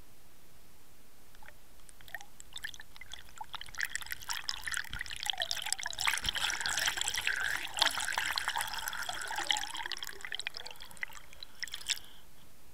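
Water gurgling and bubbling around an underwater camera as it is hauled up toward the surface. The sound builds from about two seconds in to busy splashing and bubbling, then stops suddenly near the end.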